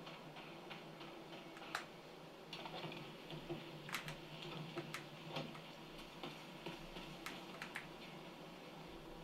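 Keystrokes on a Lofree Flow low-profile mechanical keyboard: scattered, irregular clicks, a handful of louder presses among fainter ones.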